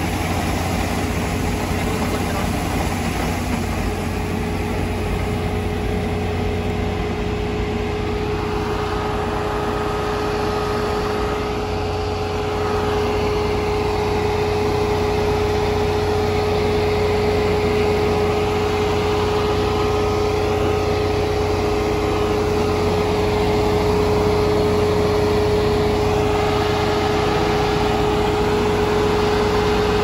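Kubota Dynamax ER470 combine harvester's diesel engine running steadily, with a steady whine that grows stronger and louder about a third of the way in.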